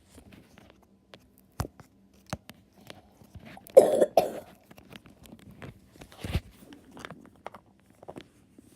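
Floam slime being squished and kneaded, its foam beads crackling in many small irregular clicks. Near the middle there is a louder, longer burst of noise, and another a couple of seconds later.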